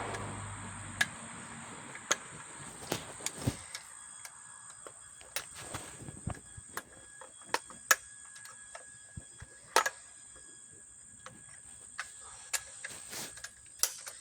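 Irregular clicks and light knocks of chainsaw parts being handled while fitting the bar and chain.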